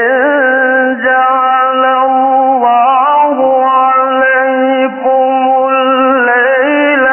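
A man's voice in melodic tajweed Quran recitation, holding one long drawn-out phrase with winding pitch ornaments and only brief breaks for breath.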